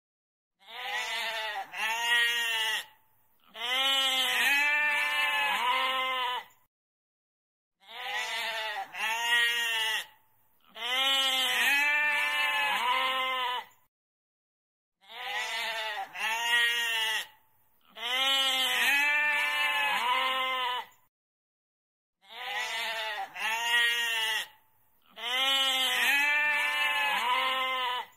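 Goat bleating: sets of three wavering calls, two short and one longer, repeated four times with silent pauses between the sets.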